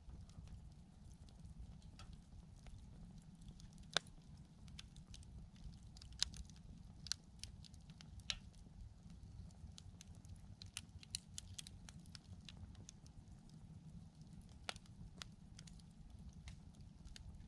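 Wood campfire crackling, with irregular sharp pops and snaps of burning wood, the loudest about four and six seconds in, over a low rumble.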